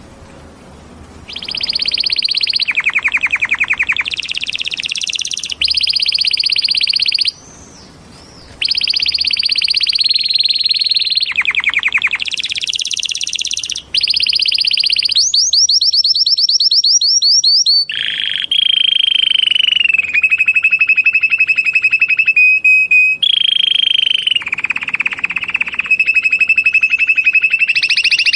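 Canary singing loudly: a long stream of high whistled notes and rapid trills and rolls, beginning about a second and a half in, with a short break around the eighth second.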